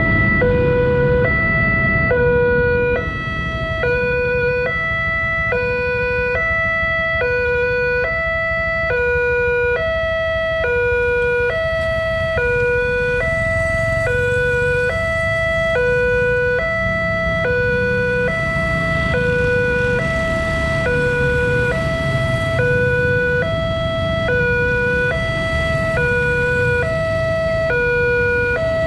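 Railway level-crossing warning alarm sounding while the barrier is active: an electronic two-tone signal alternating evenly between a lower and a higher note, about one high-low cycle a second, over a steady low rumble.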